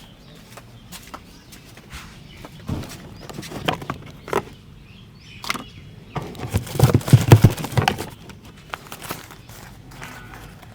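Hands tapping and patting a head and shoulders in a barbershop massage: scattered sharp taps, with a quick flurry of harder slaps about six to eight seconds in.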